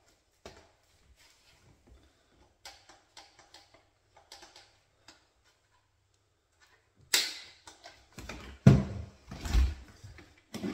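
Plastic parts of an electric paint sprayer being handled and fitted together: hose, paint cup and body knocking against each other. Sparse faint clicks at first, then a run of louder plastic knocks and thumps from about two-thirds of the way through.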